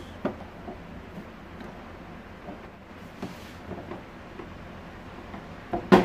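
Plastic housing of a Rowenta Compact Power Cyclonic vacuum cleaner being handled and pried at by hand to free its top cover: scattered small clicks and taps, with one sharper knock near the end.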